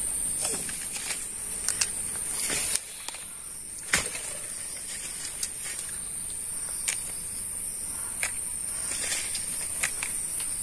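Insect drone held at one high pitch, with scattered sharp clicks and snaps close by, the loudest about four seconds in, from small fruit being picked, handled and bitten.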